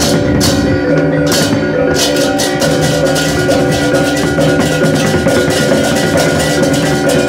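Balinese gamelan playing: tuned metal percussion rings steady pitched tones over drumming, and dense, rapid strokes join in about two seconds in.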